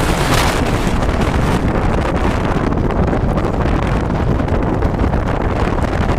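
Strong storm wind buffeting the microphone: a steady heavy low rumble, with a brighter gusting rush shortly after the start.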